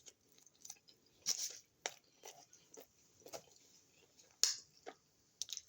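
A person chewing food close to the microphone: irregular soft crunches and mouth clicks, loudest about a second in and again just past four seconds.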